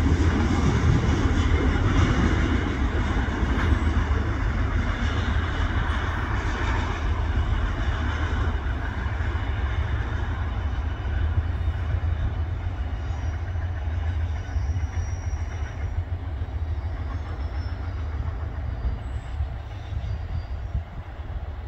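Freight train of autorack cars rolling away along the track, a steady rumble of wheels on rail that slowly fades.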